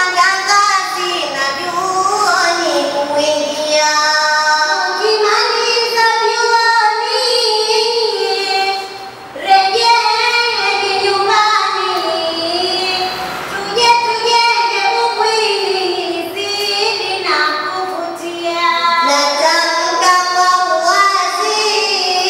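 Two girls chanting a Swahili utenzi verse poem to a sung melody into microphones, with only a brief break about nine seconds in.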